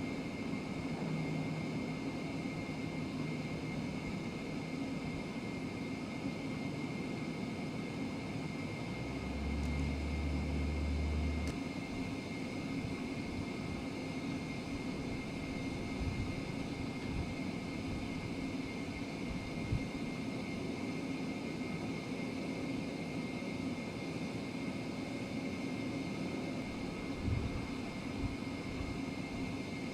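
Jet airliner engines running steadily, a constant noise with a thin high whine through it; a low rumble swells for about two seconds around nine seconds in.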